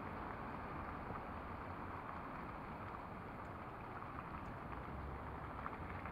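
Steady outdoor background noise: a hum of distant city traffic with low wind rumble on the microphone and a few faint ticks.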